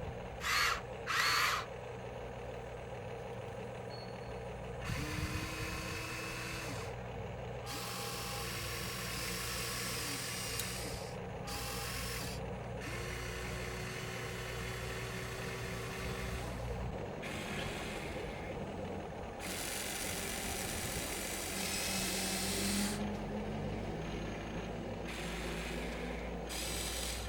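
Small electric motors and gearboxes of radio-controlled construction models whirring in repeated bursts of a few seconds each, over a steady low hum, with a few short clicks near the start.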